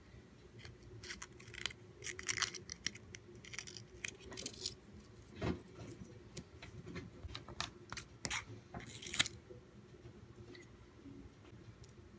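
Crinkly rustling of folded paper strips being handled and pressed flat on a table, in short scattered bursts, with a soft knock about five and a half seconds in.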